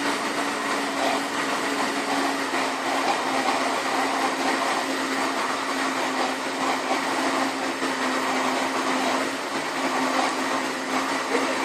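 Countertop blender running steadily, blending grated carrot with eggs, sugar, oil and milk into cake batter: a constant motor hum under the whir of the blades.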